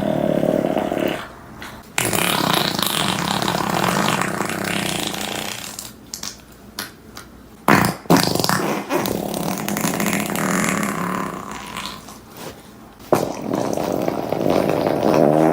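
A string of fart sounds one after another: several long ones of a few seconds each, separated by short gaps, with a few short blips around the middle.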